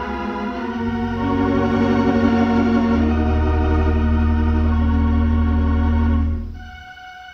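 Compton theatre organ playing sustained chords over deep, held pedal bass notes. About six and a half seconds in the chord is released and the sound drops away sharply.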